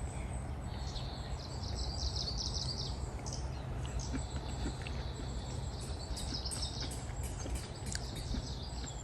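Outdoor ambience: birds chirping and calling in bursts, over a steady low rumble of background noise.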